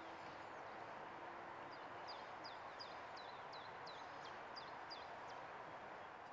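Faint outdoor background hiss, over which a small bird calls a quick run of about ten short, falling high notes, starting about two seconds in and ending about five seconds in.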